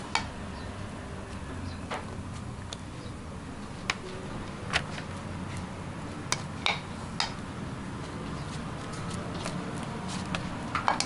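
A plastic rice paddle knocking and scraping against a plastic bento tray while rice is packed in: a handful of separate light clicks spread irregularly over a steady low background hum.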